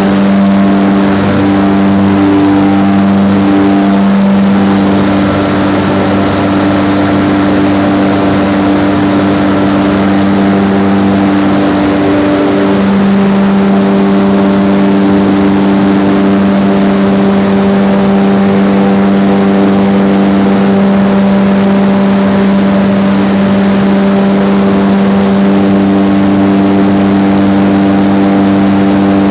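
A coal mine's main mechanical ventilator fan running with a loud, steady hum made of several held tones over a rushing noise.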